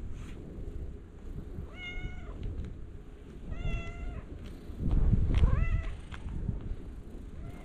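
A cat meowing three times in short calls, the third sliding upward in pitch. A low rumble runs underneath and is loudest around the third meow.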